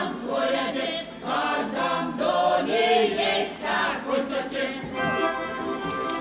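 Folk choir singing unaccompanied in the Veps tradition. About five seconds in the singing gives way to music with steady held notes.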